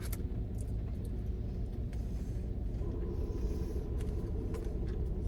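Steady low rumble inside a car cabin, with a few light clicks and taps scattered through it.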